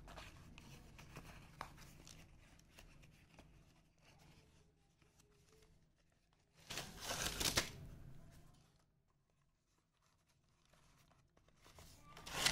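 Small cardboard box of slate pencils being handled and torn open: soft rustling, then a louder rip of card and paper lasting about a second and a half, about halfway through.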